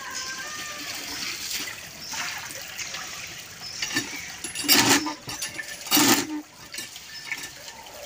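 Water gushing from a cast-iron hand pump and splashing through a bird cage onto concrete, with two sharp knocks from the pump about halfway through.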